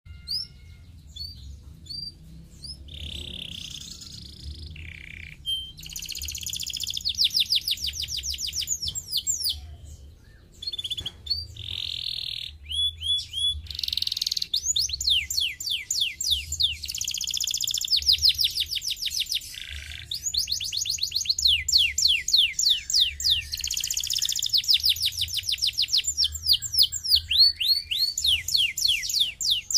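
Domestic canary singing a long, fast song of rapid trills made of quick descending sweeps, buzzy rolls and short chirps, broken by brief pauses, over a faint low hum.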